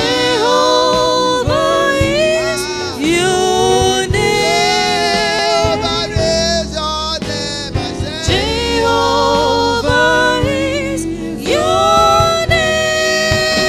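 Gospel song: a singer holding long notes with vibrato over a steady instrumental accompaniment.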